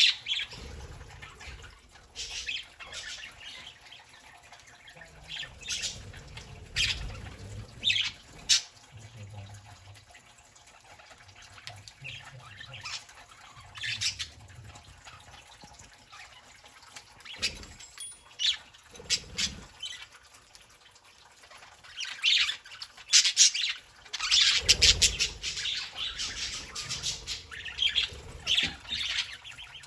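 Pet budgerigars chirping and squawking in short, scattered calls that grow busier near the end.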